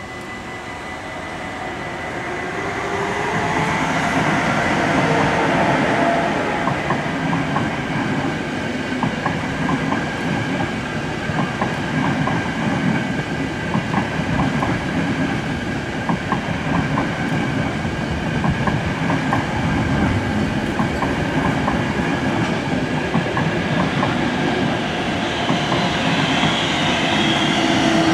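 A Dutch NS electric double-deck passenger train passes over a level crossing: its rumble swells over the first few seconds, then runs loud with a steady clickety-clack of wheels over rail joints. At the start the crossing's warning bell gives a steady tone, and near the end the sound rises again as a second electric train comes by.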